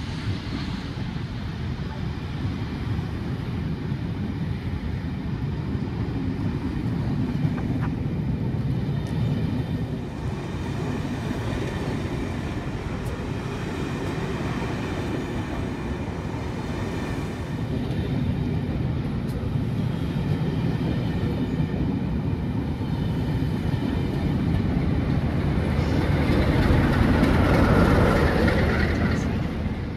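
Passenger coaches of a departing railtour rolling slowly past on the platform road, with a high squeal in the middle stretch. The diesel locomotive at the rear of the train passes near the end and is the loudest part.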